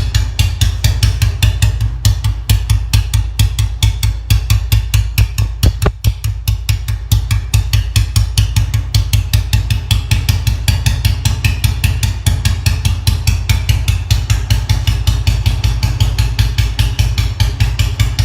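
Royal Enfield motorcycle engine idling with a steady, even, deep exhaust thump.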